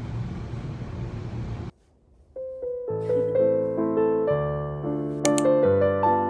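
A steady rushing noise that cuts off suddenly about two seconds in, then after a moment of silence a piano melody starts and builds, with a bright high chime about five seconds in.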